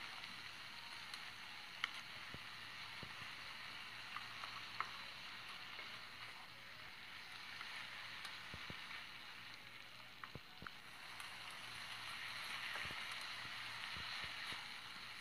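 Chicken pieces sizzling in hot oil in a pot, a steady hiss that swells a little near the end. A few sharp clicks and scrapes come from a wooden spatula working against the pan as the pieces are turned.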